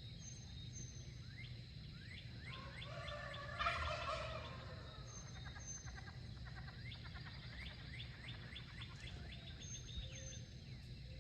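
Faint poultry calls: runs of short, quick falling chirps, with a louder gobble-like call about three and a half seconds in.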